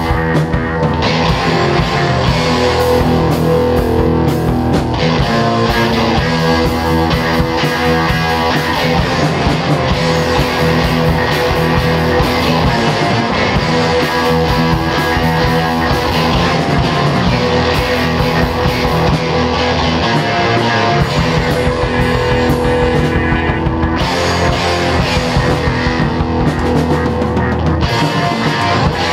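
Loud, heavy rock band recording: distorted electric guitars over a driving drum kit. There is no singing in this stretch.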